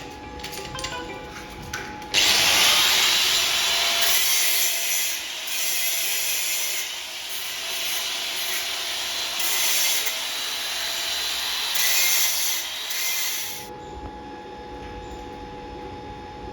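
Handheld power tool working the steel of the gate: a loud, hissing grind that starts abruptly about two seconds in, swells and dips several times, and stops about eleven seconds later.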